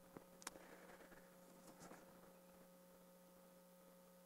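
Near silence: a faint, steady electrical mains hum, with a few faint ticks in the first two seconds.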